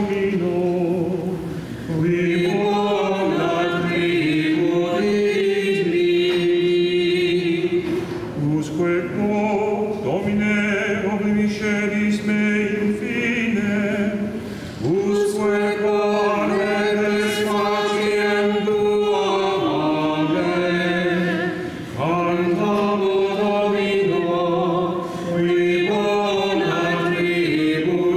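Choir chanting during the distribution of Communion at a Latin Mass. It sings in long held phrases with short breaks between them.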